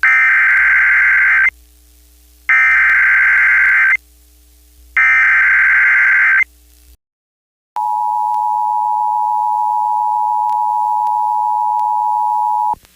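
Emergency Alert System tones: three loud bursts of the SAME digital header, each about a second and a half long and a second apart, encoding the tornado watch. After a brief silence comes the steady two-tone EAS attention signal, held about five seconds, which then cuts off.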